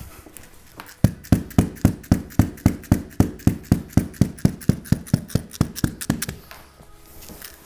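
Rapid, even taps of a tape-wrapped dead blow mallet on the rubber fillet strip of a classic Mini windscreen seal, about four or five blows a second for some five seconds, seating the strip fully into the rubber and putting tension in it.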